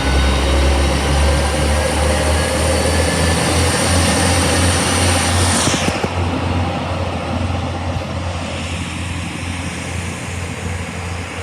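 A Northern Ireland Railways diesel train running close by with a heavy low engine rumble and a hiss. About six seconds in, a high hiss sweeps down in pitch as it passes, then the sound slowly fades.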